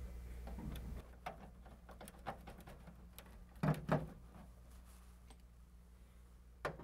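Light clicks and taps of wire and metal parts being handled at an electrical panel's lug, with two louder knocks about halfway through.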